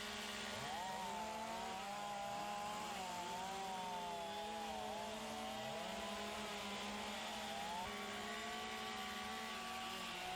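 Several chainsaws running at once over a steady low hum, their pitches wavering up and down as they cut and rev.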